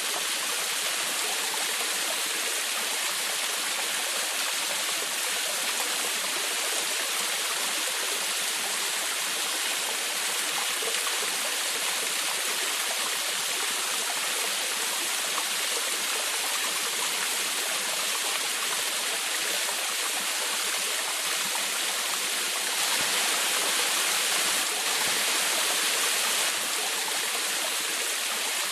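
Small forest waterfall, water splashing and babbling steadily, with a bright hiss; a little louder for a few seconds about three-quarters through.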